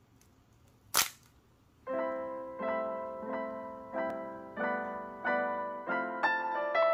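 A single sharp crack about a second in, then soft piano music with chords struck at an even, unhurried pace.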